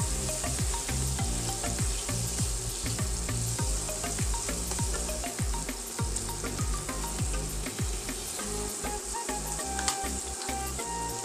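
Chopped onions sizzling in hot oil in a stainless steel pan, stirred and scraped with a silicone spatula. The stirring stops near the end while the steady sizzle goes on.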